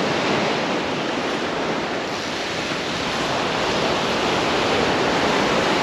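Ocean surf breaking and washing up the beach: a steady rush of waves.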